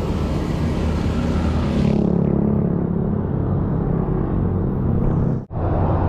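Steady low rumble of wind buffeting the microphone while riding downhill. A high hiss fades out about two seconds in, and the sound cuts out for an instant about five and a half seconds in.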